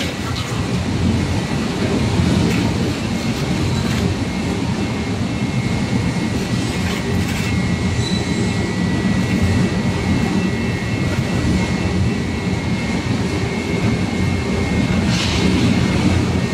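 Twin-shaft tyre shredder and its feed conveyor running empty: a steady mechanical rumble with a thin high whine. Near the end, shredded rubber tyre pieces start dropping into the hopper onto the cutter shafts, adding a louder rattling clatter.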